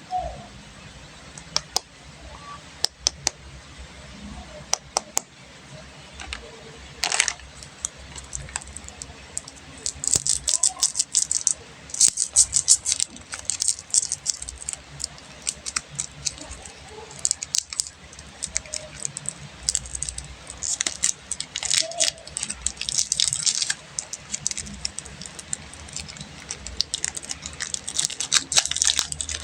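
Plastic candy wrappers crinkling and crackling as they are unwrapped by hand. The first few seconds hold scattered sharp crackles, and from about a third of the way in the crinkling turns dense and continuous.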